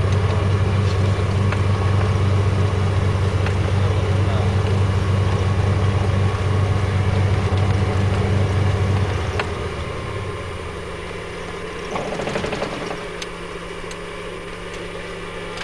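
Light aircraft's piston engine and propeller heard inside the cabin, a loud steady drone. About nine seconds in, the drone drops in level and becomes a weaker, higher hum as the engine power is reduced. A brief rushing noise comes a few seconds later.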